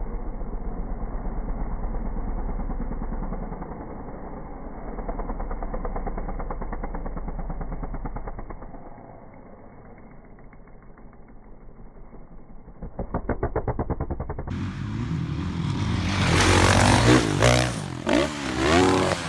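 Dirt bike engines revving and running on a motocross track, rising and falling as the bikes accelerate, wheelie and jump. About two-thirds of the way through the sound cuts to a louder, clearer clip where the revs rise and fall sharply and repeatedly.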